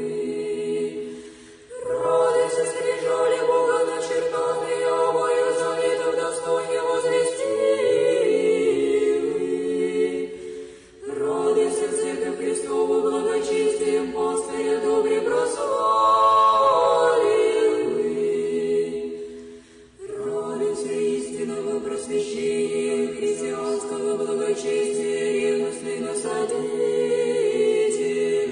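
Unaccompanied Orthodox church choir singing a slow chant in three long phrases with brief breaks between them: the sung refrain that follows the read ikos of an akathist.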